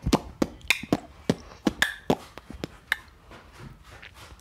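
A child beatboxing: sharp mouth pops and clicks at about three or four a second, stopping about three seconds in.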